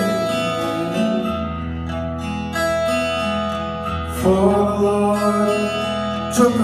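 Live acoustic ballad: acoustic guitar playing over long sustained low notes, with no lyrics sung in this stretch.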